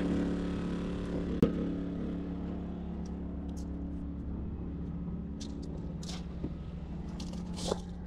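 2012 Kia Optima Hybrid's 2.4-litre four-cylinder engine idling with a steady hum, with one sharp click about a second and a half in and a few faint ticks later.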